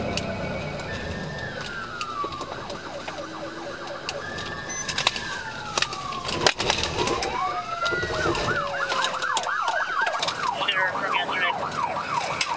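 Police sirens during a pursuit: slow wailing sweeps that fall in pitch, switching about eight seconds in to a fast yelp of several sweeps a second. Scattered sharp clicks are heard, the loudest about six and a half seconds in.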